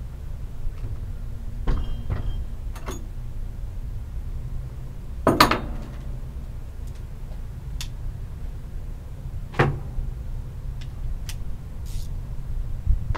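Scattered knocks and clunks of things being handled, the loudest about five and a half seconds in and another near ten seconds, over a steady low rumble.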